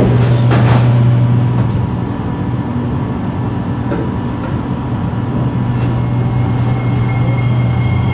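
Singapore MRT train running, heard from inside the carriage: a steady rumble of running noise with a constant low hum. A brief sharp clatter comes about half a second in.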